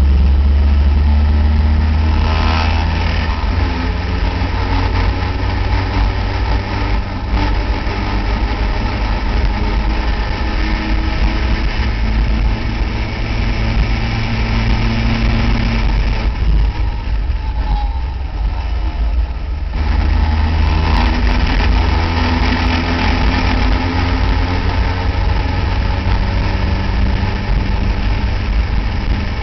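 Onboard sound of an open-cockpit Caterham Seven-style race car's engine running hard on track, with wind noise on the microphone. The revs rise and fall through the lap, thinning out for a few seconds past the middle, as when the driver lifts or brakes, before pulling strongly again about twenty seconds in.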